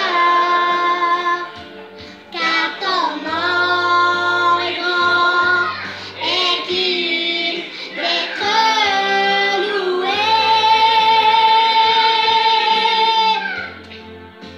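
A six-year-old girl singing a song in several phrases with held notes and pitch slides between them, the longest note held for about three seconds near the end.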